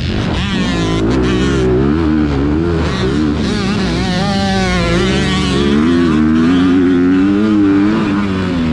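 Motocross bike engine heard from on board while being ridden, its pitch climbing and dropping over and over as the rider works the throttle and gears through the turns.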